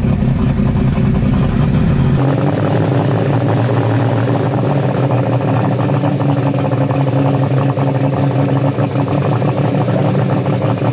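Superstock pulling tractor's engine running steadily at the start line before its pull, close up and loud. Its sound changes abruptly about two seconds in.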